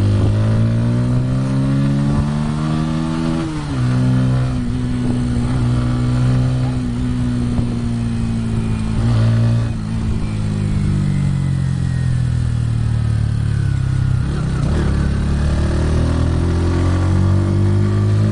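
Bajaj Pulsar N150's single-cylinder engine pulling under way. The revs climb, drop sharply at an upshift about three and a half seconds in, sink slowly as the throttle eases, then climb again a few seconds before the end.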